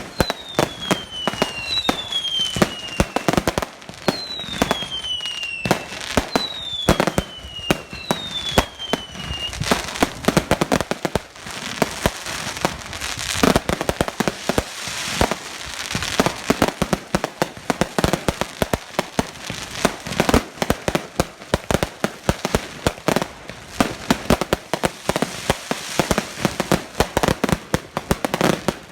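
Fireworks going off: a rapid, irregular run of bangs and crackling, with five whistles falling in pitch in the first ten seconds or so.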